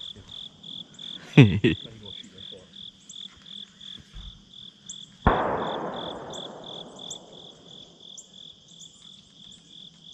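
Crickets and other field insects chirping in a steady pulsing rhythm, about three pulses a second. About five seconds in, a sudden rushing noise starts and fades away over two or three seconds, the loudest sound here; a short falling sound comes just over a second in.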